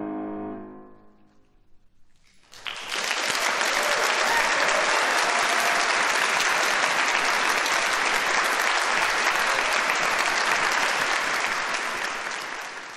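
The last piano chord rings out and dies away, then after a moment of near silence an audience breaks into steady applause, which tapers off near the end.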